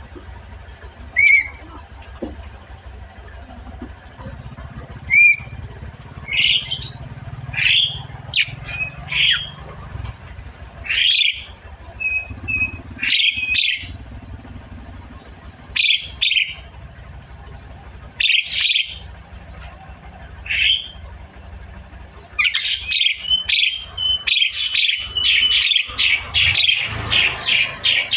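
Javan myna (jalak kebo) calling. It gives two clear whistles, then a series of short, harsh chirps and squawks a second or two apart. From about 22 seconds in it breaks into fast, continuous chattering.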